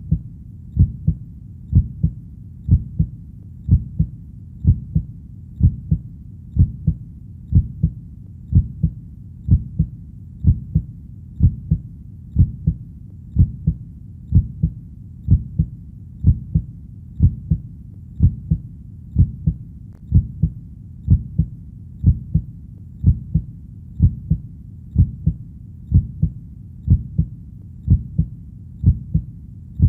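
Heartbeat: deep double thumps (lub-dub), about one beat a second, in a steady, even rhythm over a faint low rumble.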